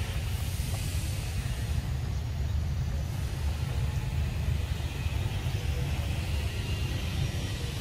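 A steady low rumble that flickers constantly, with a faint hiss above it.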